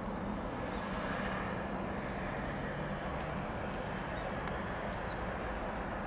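Tobu Railway electric train running at a distance: a steady rumble with a faint whine that swells slightly about a second in.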